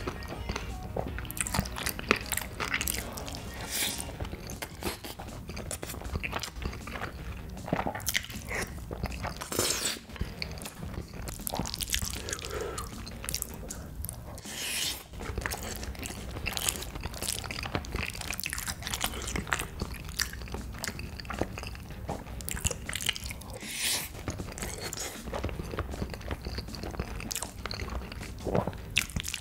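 A person eating: continuous chewing and biting with many quick, sharp mouth clicks. A few longer noisy sounds come every several seconds.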